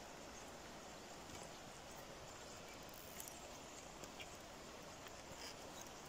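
Footsteps giving a few soft knocks on the loose log planks of a rope-and-wire suspension footbridge, over a faint, steady rush of river water.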